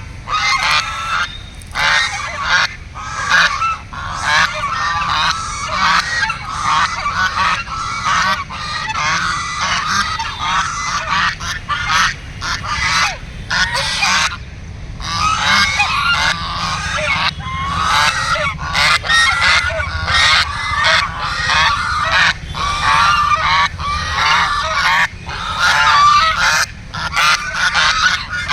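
A flock of ducks calling continuously, many loud quacks overlapping, with a brief lull about halfway through.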